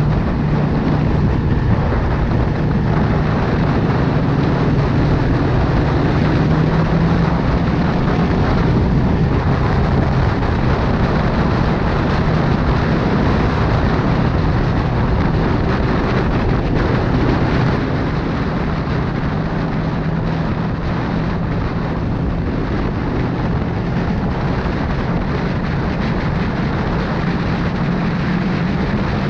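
Sport motorcycle cruising at a steady speed, heard from on board: the engine runs with a steady low hum under heavy wind rush on the microphone, easing off slightly about two-thirds of the way through.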